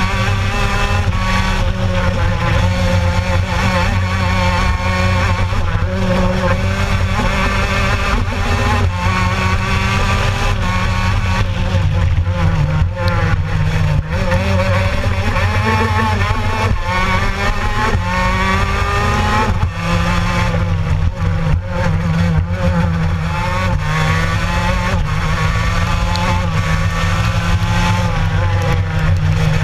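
Gilera racing kart engine at full race pace, its note climbing in pitch along each straight and falling back when braking for the corners, again and again through the lap.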